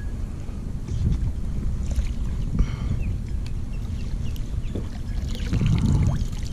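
Wind buffeting the microphone and water moving around a kayak, with small clicks and knocks from handling and a brief call about two and a half seconds in.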